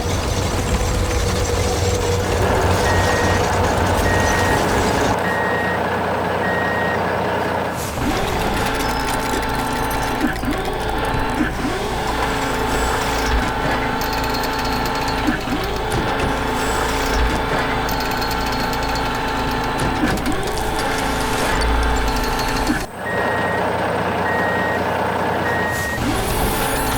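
Construction vehicle sound effects: an engine running steadily, with a reversing alarm beeping about once a second for a few seconds, twice. In between there are several short rising whines.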